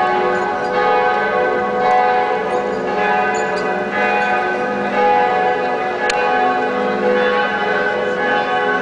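Several church bells ringing at once, their strokes overlapping in a continuous peal.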